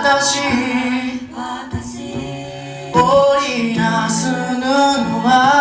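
Five-voice a cappella group singing a slow ballad through microphones and a PA speaker: a lead melody over sung harmony and bass parts. The singing drops back for a moment about a second in and comes back in full about three seconds in.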